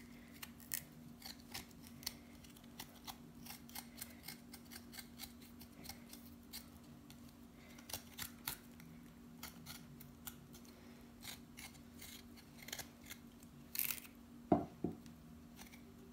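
Kitchen knife scraping and cutting the skin off a fresh ginger root held in the hand: a run of faint, irregular little scrapes and clicks. A steady low hum sits underneath.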